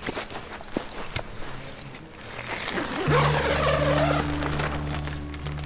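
A few light clicks and clinks, then background music comes in about three seconds in, carried by steady low bass notes.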